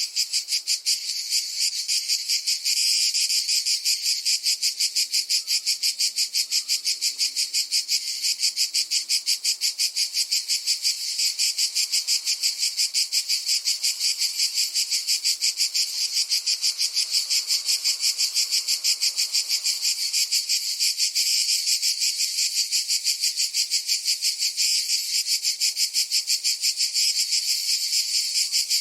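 Cicadas singing: a steady, high-pitched buzz that pulses rapidly, about four to five pulses a second, without a break.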